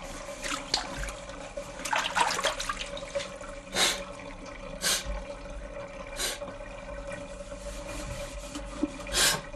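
A hand sloshing water around in a filled sink, with a cluster of splashes about two seconds in and then four short, separate splashes a second or more apart. A steady faint hum runs underneath.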